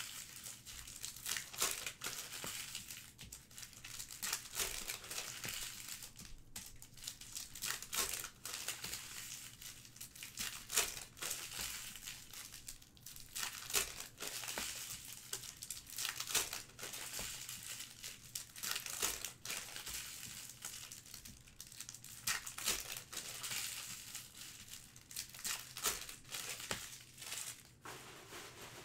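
Trading-card packaging being torn open and crinkled by hand: a dense, uneven run of crackly rustles and tearing.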